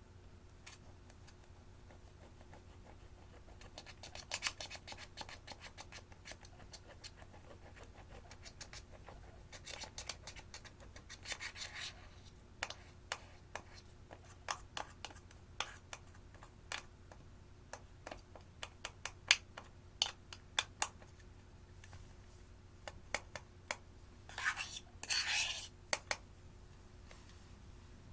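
Slime being squeezed, stretched and folded by hand as eyeshadow is worked into it, giving sharp clicks and crackling pops. These come singly and in dense bursts about 4, 10 and 24 seconds in.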